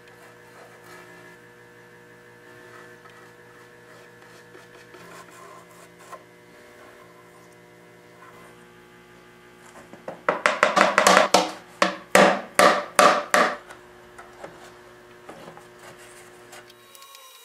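A steady electrical hum with faint handling of glue and wood. About two-thirds of the way in comes a quick run of about ten loud, sharp knocks over three seconds as the glued drawer joint is worked.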